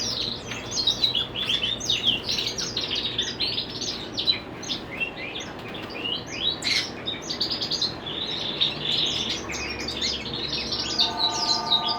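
A roomful of many small caged pet birds chirping and tweeting continuously in overlapping short calls. Near the end a telephone starts ringing.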